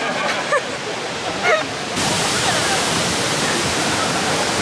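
Waterfall's falling water, a steady rushing noise that jumps abruptly louder about two seconds in and holds there. Faint voices are heard under it at first.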